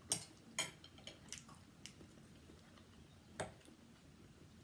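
Metal spoon and fork clicking against a plate as food is scooped up: about half a dozen short, light clicks, the loudest right at the start and another about three and a half seconds in.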